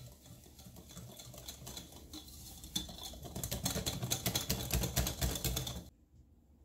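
Wire whisk beating grated coconut into a thin cake batter in a glass bowl, its wires ticking rapidly against the glass. The strokes grow louder about three seconds in and stop abruptly near the end.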